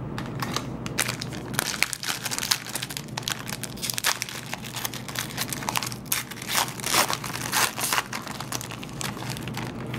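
Foil wrapper of a trading-card pack being torn open and crinkled by hand as the cards are pulled out: a dense run of irregular crackles.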